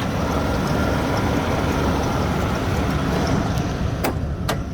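Chevrolet 8.1-litre (496 cubic inch) big-block V8 idling steadily, heard with the hood open. Two sharp clicks come near the end.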